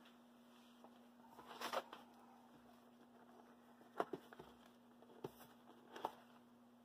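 Faint handling of cardboard model-train boxes: a brief rustle, then a few light taps and knocks as a box is picked up and its lid is opened, over a faint steady hum.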